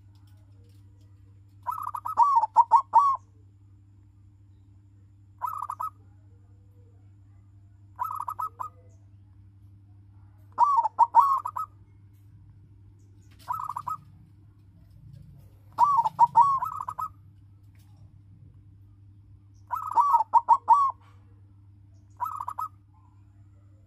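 Silver-coloured zebra dove (perkutut) cooing: short phrases of quick staccato coos, repeated about every two to four seconds, some eight times. A faint steady low hum lies underneath.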